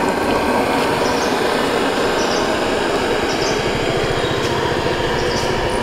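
Steady street noise with a motor engine running close by. Its low throb grows stronger in the second half, and faint high blips repeat about once a second.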